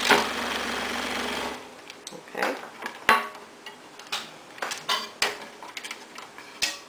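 Excalibur scroll saw running with its fine blade cutting through maple, cutting off about a second and a half in. Then a few scattered wooden knocks and taps as the cut piece is moved on the saw table.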